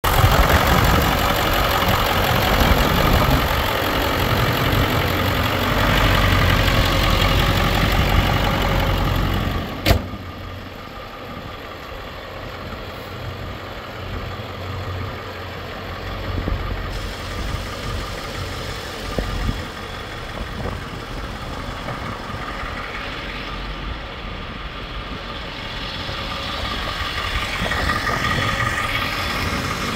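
Ford 7.3L Powerstroke turbo-diesel V8 idling steadily, loud and close for the first ten seconds. About ten seconds in there is one sharp knock, after which the idle is quieter.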